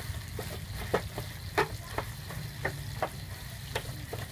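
Metal spatula knocking and scraping against a frying pan while tofu pieces are stir-fried in a little hot oil: about two sharp clinks a second, irregular, over a faint sizzle and a steady low hum.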